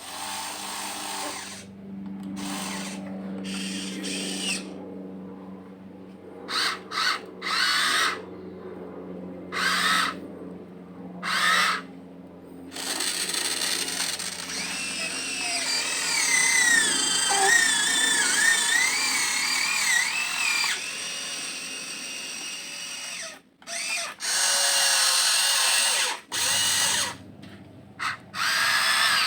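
Electric motors of a Huina 1592 RC excavator whining as the machine works, first in several short bursts, then in a longer run whose pitch wavers up and down, then in further bursts near the end.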